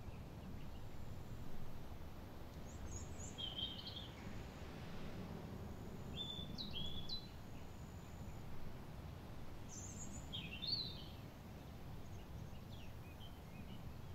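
Outdoor ambience: a steady low rumble with short clusters of high bird chirps every few seconds.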